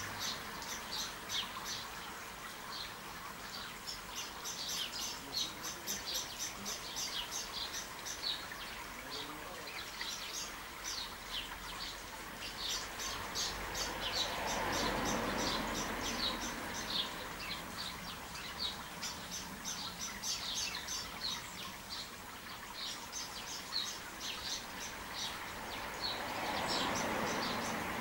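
Small birds chirping in quick, busy runs of short high notes. A soft rushing noise swells up twice, about halfway through and near the end.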